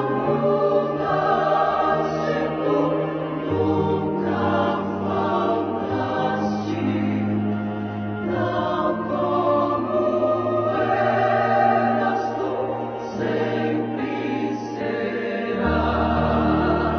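Choir singing slow Christian music in long held chords over a sustained bass, the harmony changing every few seconds.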